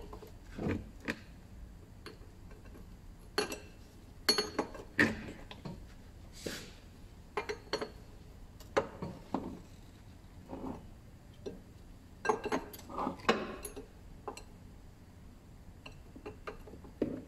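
Metal spanner clinking and knocking against a hose fitting on an engine's oil line as the fitting is worked loose, in irregular sharp clicks with short scraping sounds between them.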